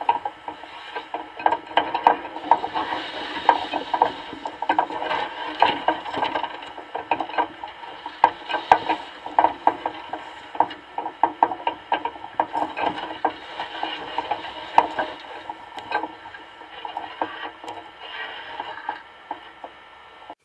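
Dense, irregular clicking and creaking from an underwater camera rig shifting on its ropes, picked up underwater. The sound cuts off suddenly at the end.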